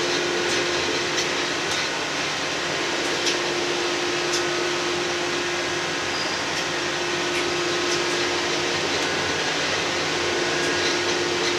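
Steady running noise of a diesel multiple unit railcar heard from inside the cab, a continuous drone with a held hum and a few faint clicks from the wheels on the track.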